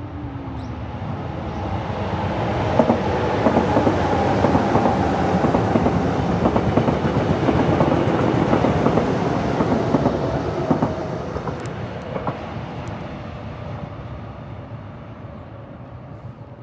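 Electric subway train passing: the rumble and clatter of its wheels on the rails build up over the first few seconds, stay loud for several seconds with a faint steady whine, then fade away as it moves off.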